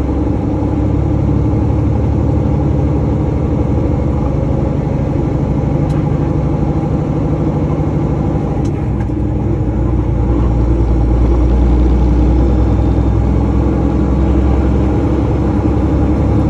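Truck's diesel engine running steadily with a low drone, growing a little louder about ten seconds in.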